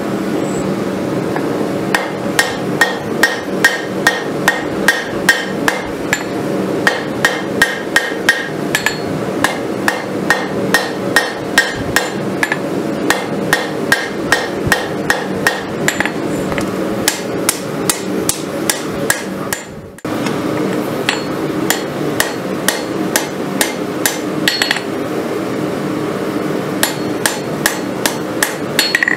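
Hand hammer striking red-hot rasp steel on an anvil in a steady rhythm of about two to three blows a second, each with a short metallic ring, over a steady background drone. This is the rough forging of a kukri blade from an old farrier's rasp. The blows break off briefly about two-thirds of the way through.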